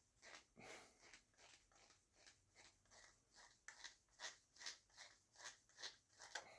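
Faint rasping clicks of a screw being turned in with a hand screwdriver, one with each turn, about three a second, growing stronger about halfway through.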